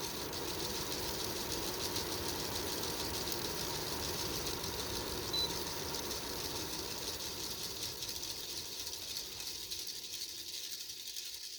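Bionaire 360XL air purifier fan running with a steady rattling, mechanical noise, which the owner takes for a bad fan bearing. It grows quieter over the last few seconds.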